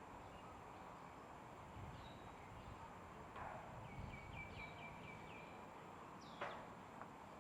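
Faint outdoor background where a bird gives a quick run of about seven short, high chirps midway, followed by a single short, sharp falling sound about six seconds in.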